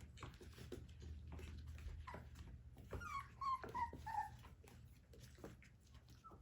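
Four-week-old puppies whimpering, a run of short high squeaks about three to four seconds in, with small scuffling clicks over a low steady hum.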